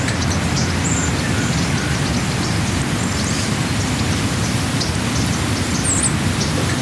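Steady low rumbling noise with scattered faint high chirps.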